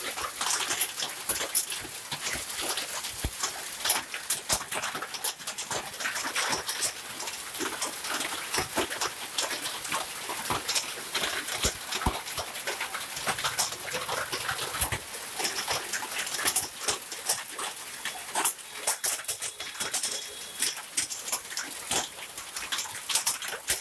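Hailstones pelting down into standing water and onto the road during a hailstorm: a steady hiss of heavy precipitation with dense, irregular sharp clicks and splashes of hail striking.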